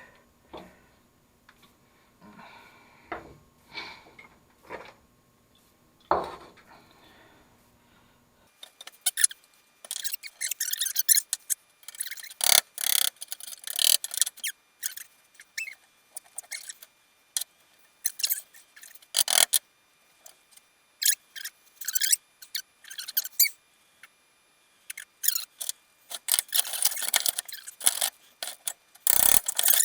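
Hand tools and metal mower parts tapping and scraping during disassembly. A few scattered taps come first, then from about eight seconds in there are rapid bursts of high-pitched scraping and rubbing.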